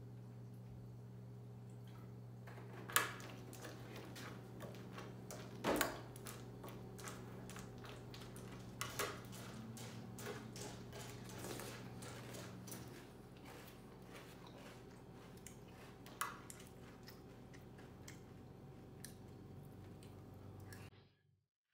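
Cereal being eaten with a metal spoon from a ceramic bowl: scattered clinks and knocks of the spoon against the bowl and chewing of the crunchy cereal, over a steady low hum. The sound cuts out suddenly near the end.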